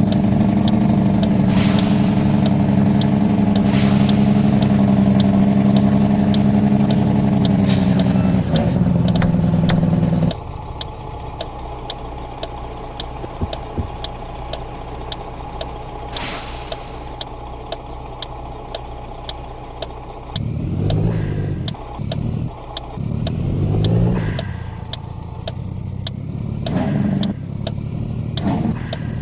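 Truck engine running loudly and steadily, dropping suddenly to a quieter running note about ten seconds in. Later the revs rise and fall several times.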